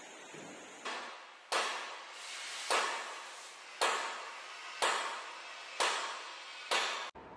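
Hammer blows on metal, seven evenly spaced strikes about a second apart, each sharp hit fading out over most of a second. The sound cuts off suddenly near the end.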